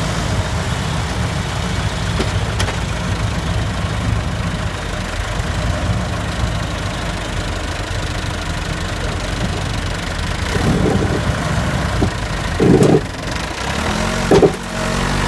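A vehicle engine running steadily at low revs, with a few short, louder sounds near the end.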